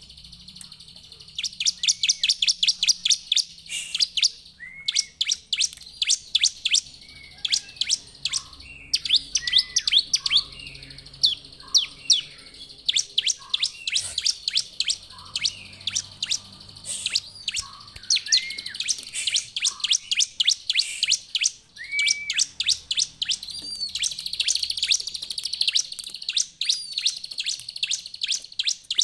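Bar-winged prinia (ciblek) singing hard: long rapid runs of sharp, high chirps, broken now and then by lower, looping notes.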